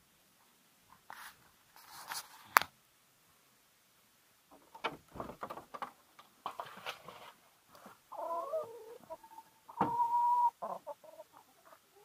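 Clicks and knocks as a wooden chicken coop door is opened by hand, then hens clucking and calling from about eight seconds in, with one call held on a steady note near ten seconds.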